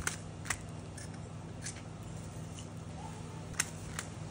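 Light clicks and taps from handling a cast-metal brake caliper while its piston bore is wiped out with a rag: about five short, sharp clicks spread through, over a steady low hum.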